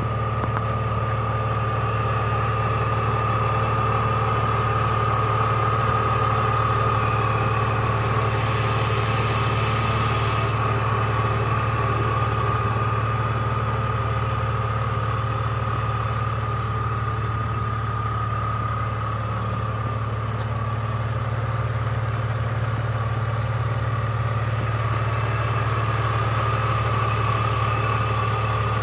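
BMW engine idling steadily, with a constant low hum and a steady high whine over it.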